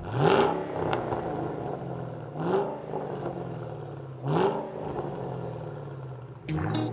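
2014 Ford Shelby GT500's supercharged 5.8-litre V8 revved three times while parked, each blip rising quickly and falling back to a steady idle in between.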